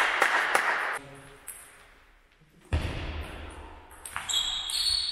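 Table tennis ball being hit back and forth: sharp clicks of the ball off bats and table, in the first second and again from a little under three seconds in, with a near-quiet pause between. A high drawn-out squeak comes near the end.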